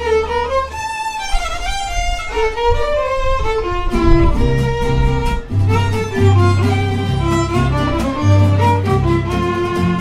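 Mariachi band playing live. The violins carry a melodic line on their own at first, then about four seconds in the guitarrón bass and strummed guitars come in under them.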